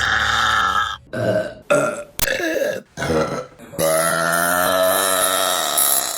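Women burping: a quick run of short burps, then one long, pitched burp lasting about two seconds.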